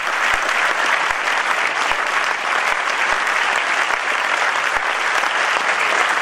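A large audience filling a hall applauding steadily, a dense, sustained round of clapping.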